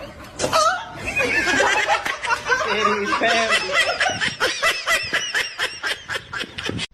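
Laughter, breaking into quick repeated bursts of several a second in the second half, then cut off abruptly.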